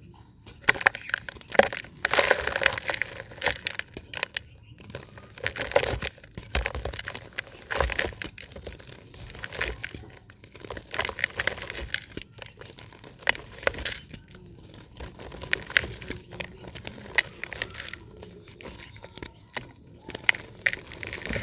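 Dried, hardened dirt shapes being crumbled by hand, crunching and crackling in irregular bursts of sharp snaps, with short pauses between handfuls.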